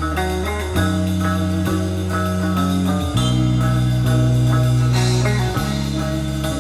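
Guitar-led rock music with a bass line that moves between long held notes.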